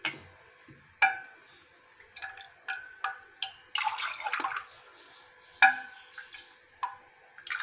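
A metal ladle clinking against a stainless steel pot and glass cups, in several sharp ringing clinks. Around four seconds in there is a short splashing pour of the milky raib mixture from the ladle into a glass.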